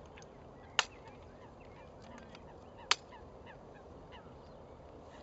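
Two sharp clicks about two seconds apart, over many faint short bird calls in the background.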